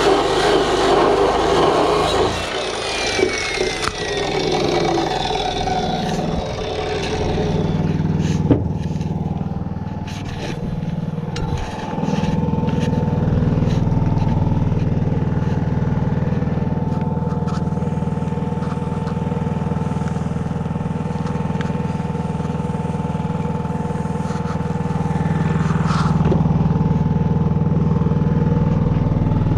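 An engine idling steadily, with a thin steady whine above the low engine note; the first few seconds are louder and noisier before it settles.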